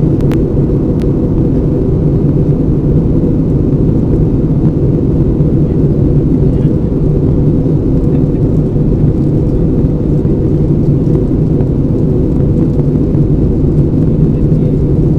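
Steady cabin noise of an Airbus A320 in flight: a low rumble of jet engines and airflow on the fuselage, with a constant hum and no changes in pitch or level.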